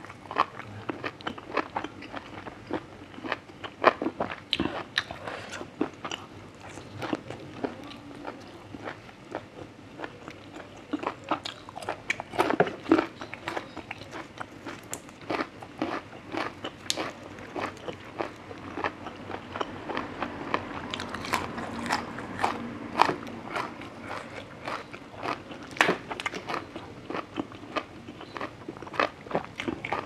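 Close-miked chewing and biting as a person eats grilled intestine salad with sticky rice and fresh herbs: irregular wet mouth clicks and bites all the way through.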